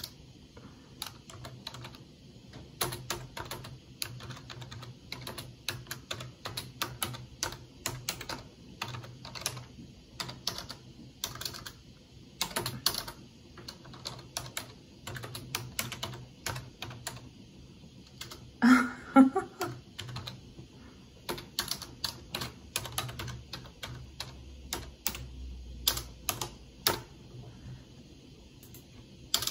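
Typing on a computer keyboard: a long run of uneven key clicks with brief pauses. About two-thirds through comes a short, louder vocal sound.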